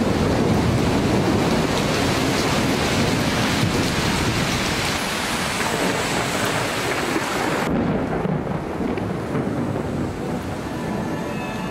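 Rain falling hard with thunder rumbling. The rain's hiss thins suddenly about two-thirds of the way through, and music with held tones comes in near the end.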